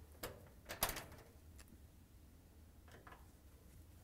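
Faint clicks and scrapes of a Phillips screwdriver working screws out of a dryer's sheet-metal cabinet: a few sparse clicks, the loudest just under a second in.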